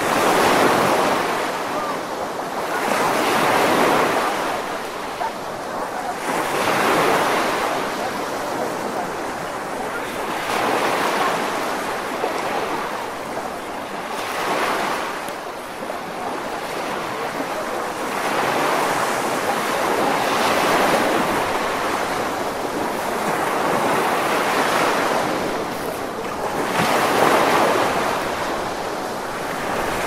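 Sea surf breaking and washing up a sandy shore, the rush of water swelling and falling away every three to four seconds.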